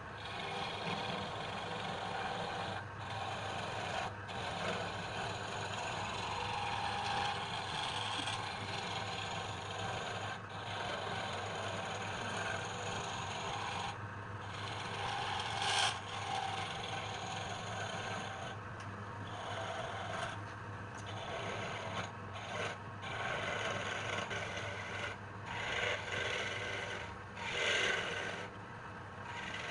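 A wood lathe runs with a steady low hum while a turning tool scrapes against the spinning wood. The scraping breaks off briefly every few seconds as the tool is lifted, then comes back.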